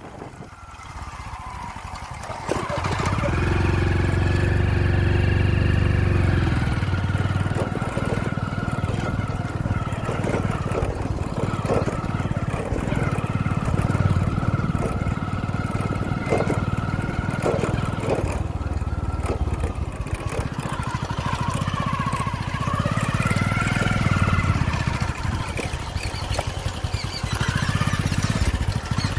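Motorcycle engine running while under way. It is quieter for the first two seconds, then louder and steady from about three seconds in.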